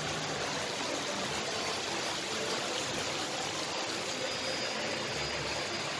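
Water flowing steadily down a cascade of shallow steps and splashing into a pool below.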